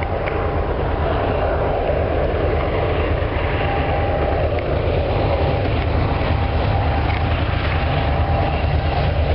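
Approaching CN diesel freight locomotives and train running steadily, a deep continuous rumble.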